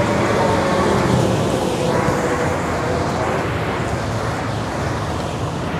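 Busy city road traffic, a steady roar of passing cars and other vehicles, with one engine's drone slowly falling in pitch during the first few seconds as it goes by.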